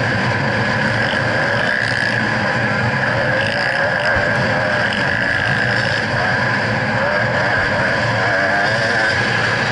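2011 GasGas EC300's 300 cc two-stroke single-cylinder engine running under load on a dirt bike at speed, its pitch rising and falling with the throttle, with wind rushing over the onboard camera's microphone.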